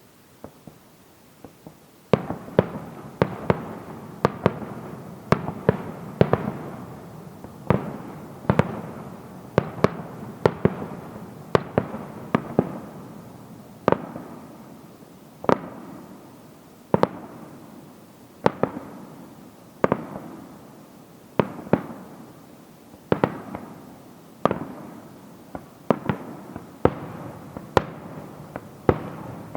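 Aerial fireworks shells bursting in a continuous barrage, starting about two seconds in: sharp bangs roughly one a second, each followed by a rumbling echo.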